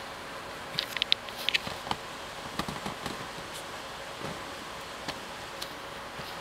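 Two-week-old Vizsla puppies stirring on a fleece blanket: soft rustling with a few brief squeaks and clicks, clustered about a second in and again near three seconds, over a steady hiss and faint hum.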